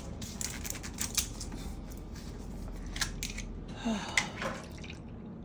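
A utensil stirring in a bowl, with scattered light clicks and scrapes against its sides as the mixture is mixed to a creamy consistency.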